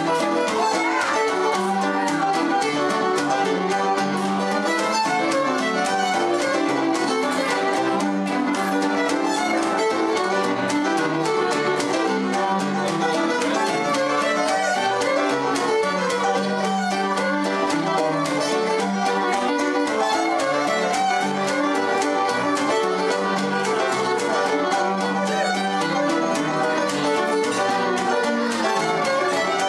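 Instrumental background music led by a fiddle, playing steadily.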